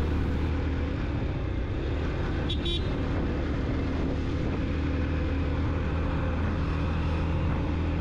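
Yamaha FZ-X motorcycle's single-cylinder engine running at a steady cruise while riding, a constant low engine hum.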